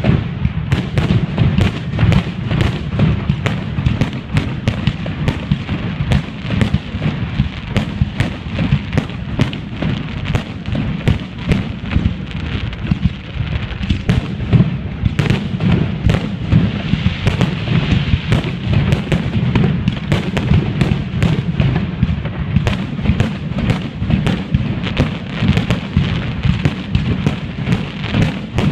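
Fireworks display: a dense, continuous barrage of shell bursts, many sharp bangs a second over a steady low rumble.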